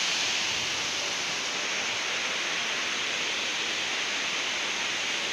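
Waterfall pouring over rocks into a pool: a steady, even rush of falling water with no breaks.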